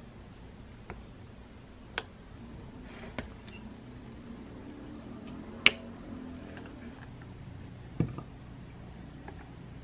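Light clicks and taps of metal kitchen tongs against a plastic tray as egg-soaked bread slices are lifted and turned, with one sharper click about halfway through and a duller knock near the end, over a steady low hum.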